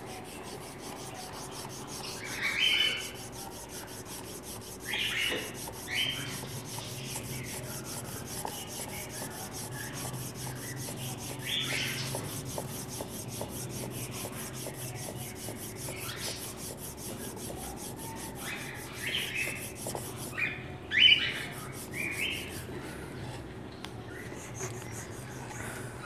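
Garlic cloves being rubbed back and forth on a flat metal grater in a wooden bowl of water: a steady scraping rasp. Short bird chirps come now and then over it, the loudest about three seconds in and again around twenty-one seconds.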